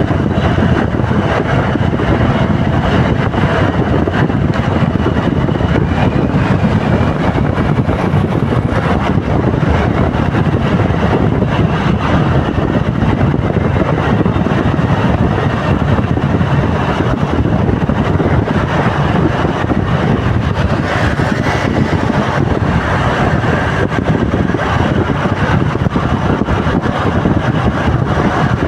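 Steady road traffic noise from vehicles in a jam, with wind rumbling on the microphone.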